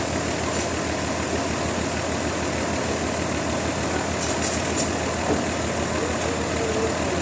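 An engine running steadily at idle, with a low, even drone throughout.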